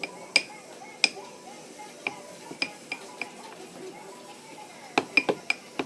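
Spoon clinking against a bowl while stirring cream cheese into frosting: sharp, ringing clinks at irregular intervals, with a quick run of several about five seconds in.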